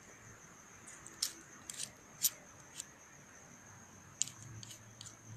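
Crickets chirring in a steady, high-pitched drone, with a handful of sharp clicks and ticks scattered over it, clustered around a couple of seconds in and again near the end.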